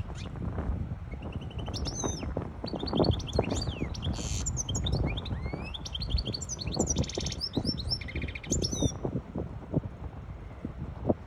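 Goldfinch hybrid singing a fast, varied song of twittering notes, quick sweeps and buzzy trills, which stops near the end. A steady low rumble runs underneath.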